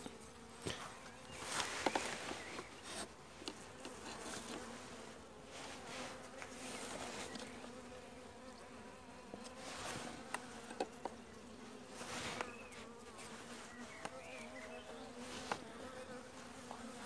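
Honeybees buzzing in an open hive, a steady low hum, with a few light knocks and rustles of the hive being handled.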